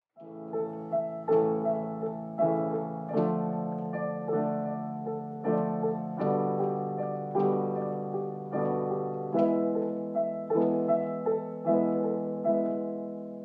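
Solo piano intro: slow, gentle melody notes over sustained chords, the last chord left ringing and fading out near the end.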